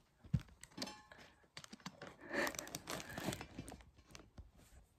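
Rustling and scattered small knocks from a phone being handled close to its microphone.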